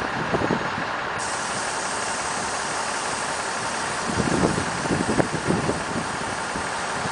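Diesel engines of an FS ALn668 railcar idling while the train stands still, a steady running noise with louder, uneven rumbles from about four seconds in.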